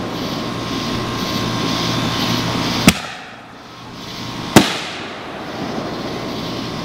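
Aerial fireworks bursting: two sharp bangs about three seconds in and again a second and a half later, the second trailing off briefly.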